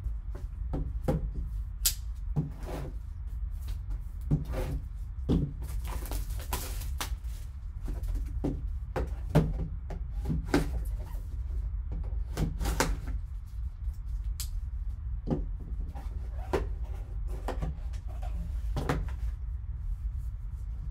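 Gloved hands unboxing a shrink-wrapped trading-card box: a serrated knife slitting the plastic wrap, the wrap crinkling and tearing, then the cardboard lid and a paper insert being handled. It comes as a string of irregular clicks, rustles and taps over a steady low hum.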